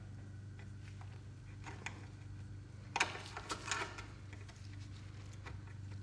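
Screwdriver tip scraping and clicking against the crimped metal seam of an automatic-transmission filter as it is pried at, with a cluster of scrapes about three seconds in. A steady low hum runs underneath.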